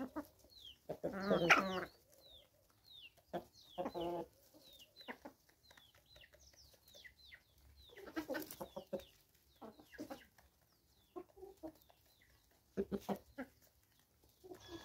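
A flock of hens and roosters clucking in scattered bursts. The loudest call comes about a second and a half in, with further bursts around four, eight and thirteen seconds.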